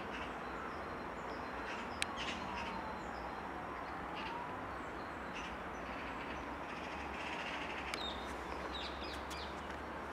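Open-air ambience: a steady low rumble of distant traffic with birds calling now and then, and a single sharp click about two seconds in.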